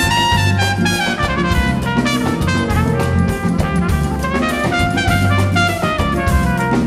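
Big band playing a calypso, with a trumpet soloing over the brass section and drum kit. The music is dense and steady, and there are several quick falling runs of notes.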